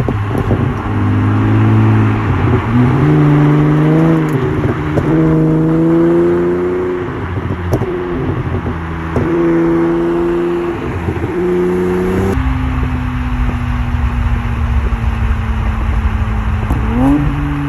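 Honda Accord V6 engine and exhaust pulling through the gears: the note climbs, drops at each shift and climbs again. About twelve seconds in it settles to a steady, lower, slowly falling drone, then rises quickly near the end.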